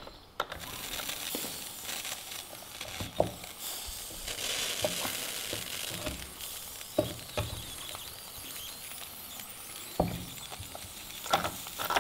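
Steady sizzling hiss from the Bowman Seahawk model steam boat's boiler as steam is raised, with scattered light clicks and knocks.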